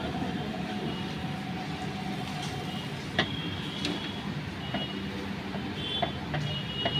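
Steady background hum with a few faint metallic clicks as a nut is spun by hand onto a scooter's axle.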